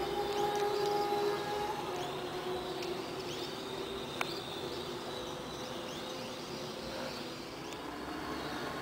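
Outdoor background noise: a distant held tone that fades out about two seconds in, over a steady low rumble, with faint high chirps throughout and a single sharp click about four seconds in.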